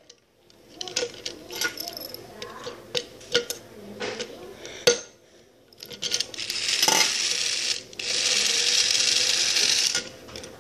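Small clicks and knocks of plastic parts and battery contacts being handled, then the toy Thomas engine's small battery-powered electric motor and gears whirring steadily for about four seconds, stopping briefly once partway.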